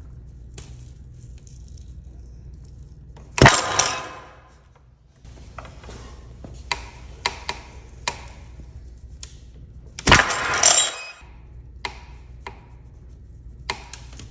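3D-printed PLA drywall anchors failing under a hanging pull load: two loud sudden cracks, about three and a half seconds and ten seconds in, each followed by a brief metallic rattle of the hook and scale. Lighter clicks and creaks fall between them over a low steady hum.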